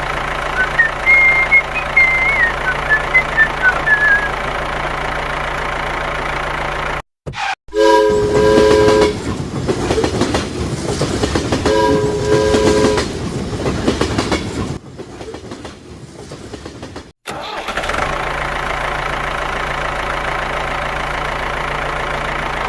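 A train horn sounds twice, about four seconds apart, a chord of several steady tones over the running noise of a train. Before and after this, a steady mechanical hum runs, with a few high chirps early on.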